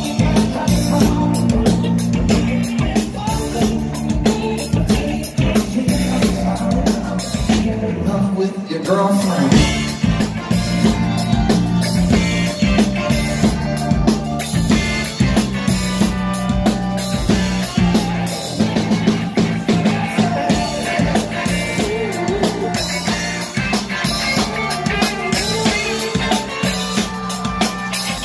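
Live soul band playing loudly: drum kit, electric guitar and horns. The low end drops out for a moment about eight seconds in before the band comes back in.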